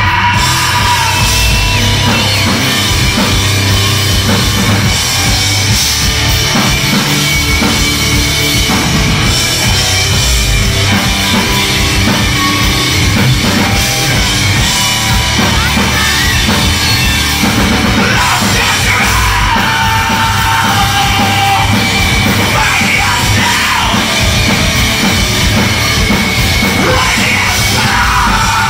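A live rock band playing loudly: electric guitar, bass guitar and drum kit together, without a break.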